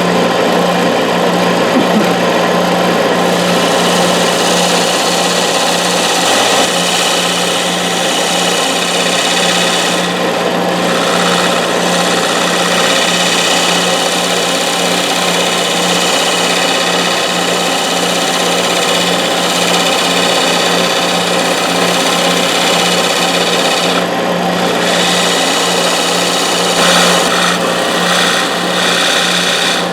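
Wood lathe running steadily with a constant motor hum, while a turning tool cuts a V-groove into the spinning wood of a finial with a continuous scraping hiss. The cutting noise eases off briefly a few times as the tool is lifted and set again.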